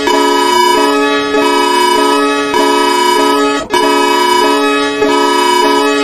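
An emergency alert alarm presented as Bhutan's: chords of steady, reedy electronic tones that step between pitches in a pattern repeating about once a second, with a brief break about midway.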